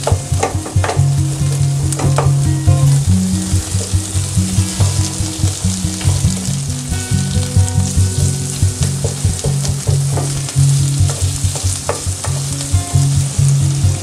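Sliced red onion, cherry tomatoes and garlic sizzling in oil in a frying pan while being stirred with a spatula, with a few sharp taps and scrapes of the spatula against the pan.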